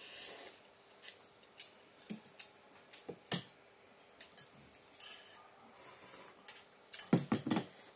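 Spoons clinking and scraping against a glass bowl and a ceramic bowl while eating rice-noodle soup, in scattered sharp clicks. A short slurp of noodles comes at the start, and a denser run of knocks and clinks comes near the end.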